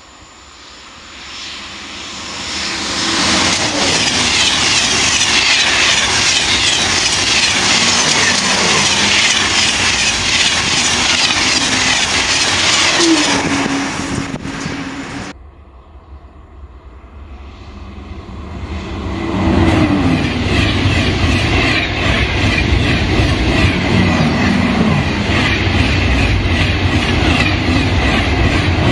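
Two coupled TGV Atlantique high-speed trainsets passing close by: a rush of wheels on rail and air builds, holds loud for about ten seconds with a few falling whines, then fades. After a sudden cut about halfway through, a second TGV passes the same way and stays loud to the end.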